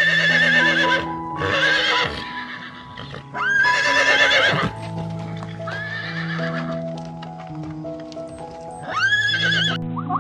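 Horse neighing about five times, each whinny a quavering call, over background music with long held notes.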